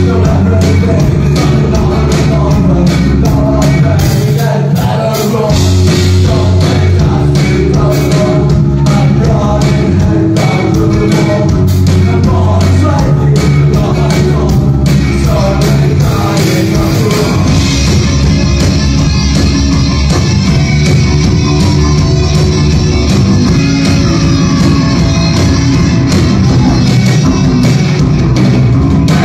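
Live rock band playing loud: drums, bass, electric guitars and synth, with singing. About seventeen seconds in, the drumming changes from sharp separate hits to a steady cymbal wash.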